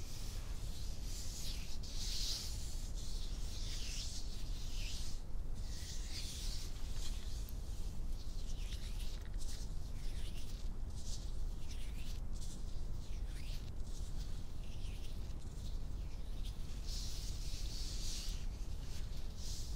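Hand sounds close to the microphone: palms and fingers rubbing and brushing together in soft, irregular swishes, each lasting about a second.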